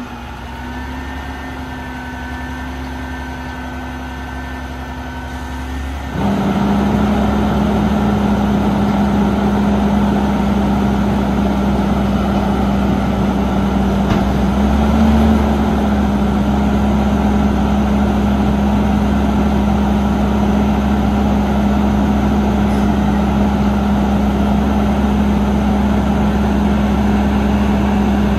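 Autocar ACX garbage truck standing still with its engine idling; about six seconds in the engine speeds up suddenly and holds a steady, louder high idle, as it does when the hydraulic packer is run to compact a heavy load of recycling.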